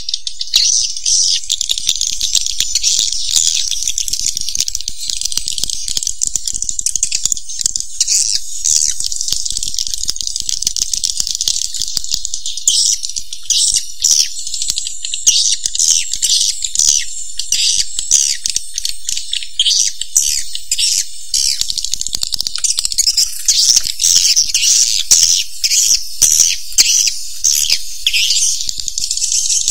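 Swiftlet calls: a dense, continuous high-pitched twittering of rattling chirps and clicks, growing busier about halfway through. This is a swiftlet lure call, the kind played to draw swiftlets into a nesting house.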